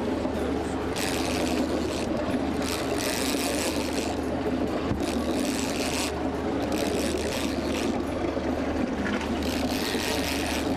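Boat's engine running steadily under constant wash, with about five spells of higher hissing, each roughly a second long, coming and going.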